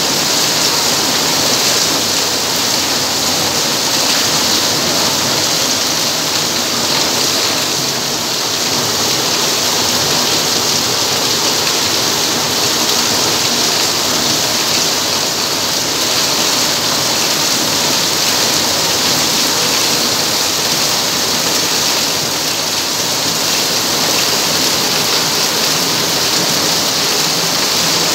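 Heavy rain falling steadily: a dense, even hiss of the downpour with water splashing onto hard wet ground.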